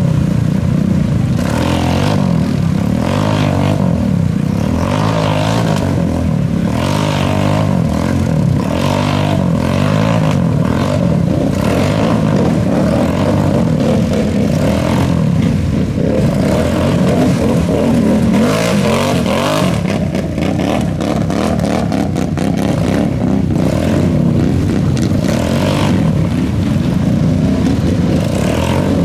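Off-road vehicle engines, ATVs and UTVs, running and revving hard, their pitch rising and falling continually.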